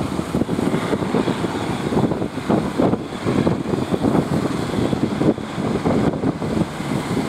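Fishing boat's engine running continuously with a rough, uneven noise.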